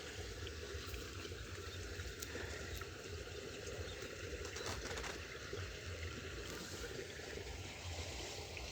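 Water trickling steadily in a small ditch, with a few faint ticks about five seconds in.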